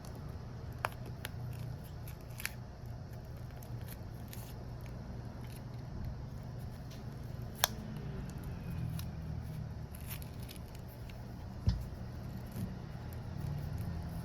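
Small hand tools clicking and scraping on a smartphone during a battery replacement, a few sharp clicks spaced seconds apart, over a steady low hum.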